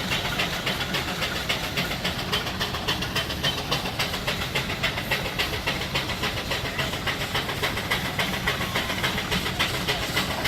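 1925 Case steam traction engine running, its exhaust chuffing in an even, rapid beat over a steady low rumble.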